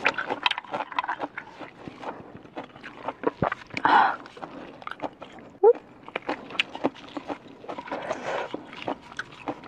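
Close-miked eating sounds: smoked snail shells clicking as they are handled and picked at with a toothpick, with wet mouth and chewing noises, and a louder wet sound about four seconds in.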